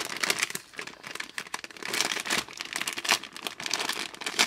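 A squishy toy's crinkly plastic packaging bag being handled by hand, crackling and rustling irregularly.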